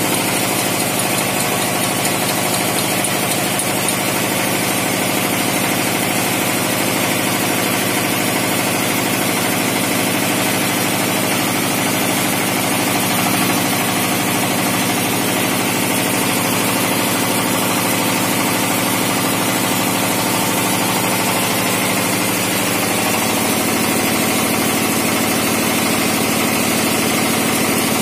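Tongfeng single-cylinder diesel engine running steadily at a constant speed, driving a home-built generator set's 20 kW dynamo.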